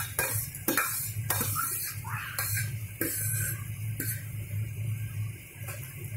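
Steel ladle and spoon clinking and scraping against a steel bowl and kadhai as mashed boiled brinjal is scraped into the pan and stirred, with several sharp knocks. A steady low hum runs underneath.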